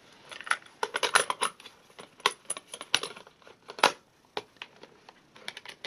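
Plastic clicks and clatter from a Memorex portable cassette player as a cassette goes in, the door is snapped shut and its controls are pressed: a run of sharp clicks, the loudest in the first four seconds, then a few lighter ones.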